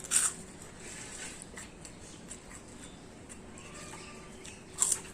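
Close-up mouth sounds of a person eating: soft clicks of chewing with two loud, sharp lip smacks, one right at the start and one near the end.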